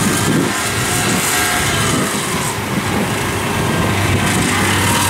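Kubota DC-70 combine harvester running steadily under load as it cuts rice: a constant diesel engine drone with the rush of the working cutter and threshing machinery.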